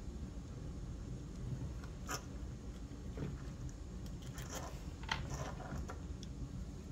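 Light clicks and scrapes of a screwdriver and small metal parts being handled, the screwdriver set into the screws of a jigsaw's cast gear housing cover to open it. A few separate knocks and scrapes come over a steady low hum.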